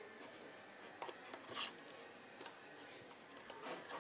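Hands working a small paperboard drink carton: a few faint taps and scrapes, the clearest a brief scrape about a second and a half in.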